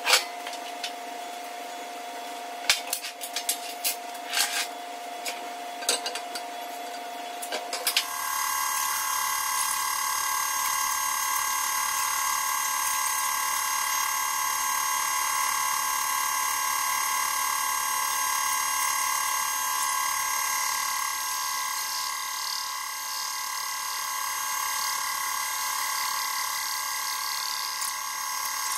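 Metal clinks and knocks over a steady hum as the line-boring bar is set up, then, from about 8 seconds in, a portable line-boring machine running with a steady whine while its boring bar takes a light clean-up cut through the worn bore of a CAT 374 excavator link, the bore damaged by a failed bushing.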